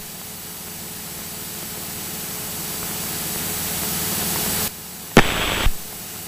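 Steady hiss of a light aircraft's radio and intercom audio, growing slowly louder, then a sharp click and about half a second of static about five seconds in.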